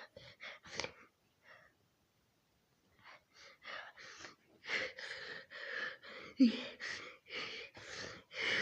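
A cartoon character's sneezing: a run of short, breathy gasps, about three a second. It stops for a moment, then comes back louder from about three seconds in.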